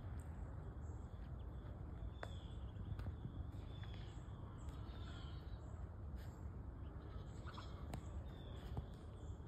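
Faint high peeping of Muscovy ducklings, short falling chirps every second or two, over a steady low rumble.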